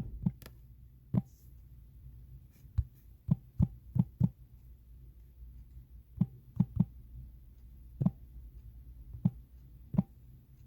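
Irregular soft taps and thumps of handling, about fifteen scattered short knocks, while a Bible is searched for a verse.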